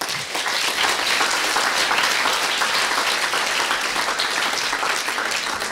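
Audience applauding: many people clapping together, starting suddenly and keeping up steadily.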